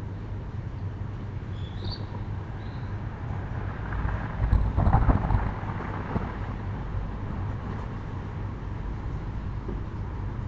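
A road vehicle passing by: a broad rumble that swells to its loudest about halfway through and then fades, over a steady low background hum.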